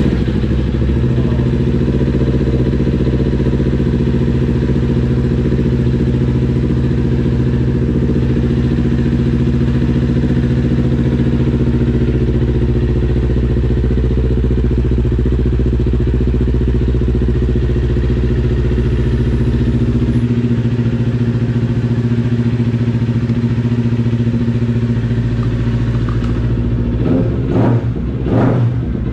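2019 Kawasaki Ninja 400 parallel-twin engine idling steadily through an aftermarket full exhaust system: Akrapovic slip-on and Performa headers. Near the end it is revved briefly a few times.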